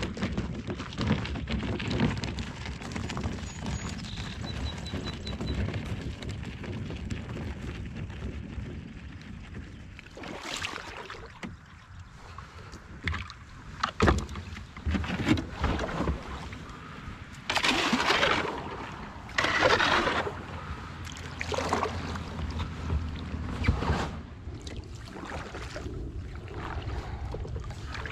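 Kayak being launched and paddled on calm water: irregular paddle splashes and drips, with a few sharp knocks of paddle or gear against the hull, mostly from about ten seconds in.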